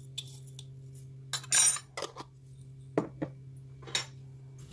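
A few light metallic clinks and a short rattle as a small metal spice tin is handled and set down after peppercorns are tipped into a marble mortar. The rattle about a second and a half in is the loudest, and a steady low hum runs underneath.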